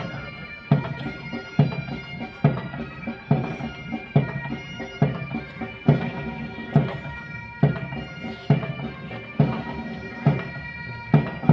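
Military pipe band playing a march: bagpipes with a steady bass-drum beat a little under once a second.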